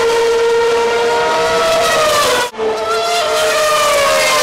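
Racing car engines running at high revs on the circuit: a loud, sustained high-pitched note with several pitches that shift slowly, broken off briefly about two and a half seconds in.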